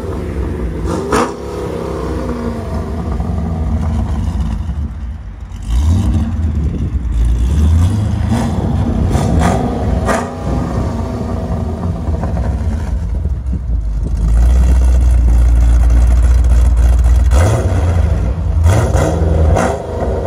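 E85-tuned 2011 Chevy Caprice's 6.0L LS V8, breathing through long-tube headers and a Solo Performance exhaust, being free-revved with the car standing still. It takes several quick blips that rise and fall, holds a steady high rev for about three seconds late on, then drops and gets a few more blips near the end.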